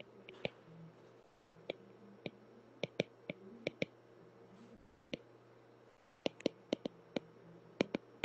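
Stylus tip tapping on a tablet's glass screen while handwriting: irregular sharp clicks, sometimes several in quick succession, with a pause of a second or so now and then. A faint steady hum runs underneath.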